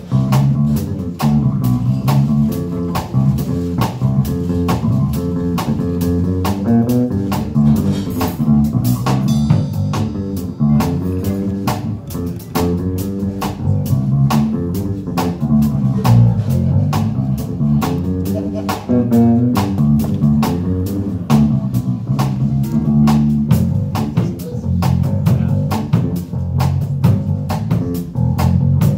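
Live band playing: electric and acoustic guitars over bass and a drum kit keeping a steady beat.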